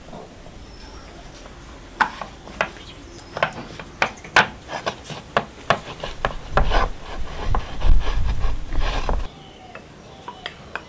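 Hands pressing and pinching pizza dough into a metal pizza pan on a wooden table: a run of irregular sharp clicks and knocks, then a heavier rubbing and scraping that stops suddenly near the end.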